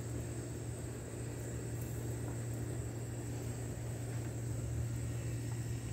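Steady low mechanical hum, with a constant thin high-pitched buzz of insects over it.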